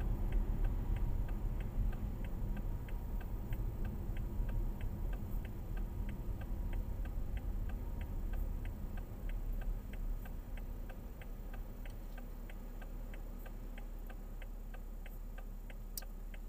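A car's left-turn indicator clicking steadily, about three clicks a second, over road and engine noise inside the cabin. The road noise falls away about two-thirds of the way through as the car comes to a stop, leaving the clicks over a quiet idle hum.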